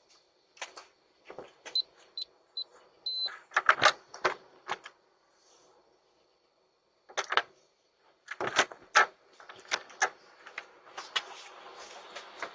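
Irregular clicks and knocks in clusters, with a few short high beeps about two to three seconds in and a gap of near silence in the middle.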